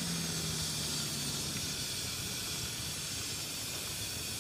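Steady hiss of a venturi orifice steam trap discharging hot condensate with flash steam at its outlet, which the maker takes as a trap working efficiently with no live steam loss. Under it, a heater-battery fan motor's hum sags slightly in pitch and fades out about a second in as the switched-off fan winds down.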